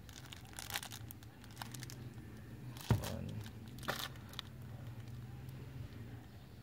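Faint crinkling of a clear plastic wrapper and a few sharp clicks as a plastic-wrapped remote control is handled and its buttons pressed, over a steady low hum.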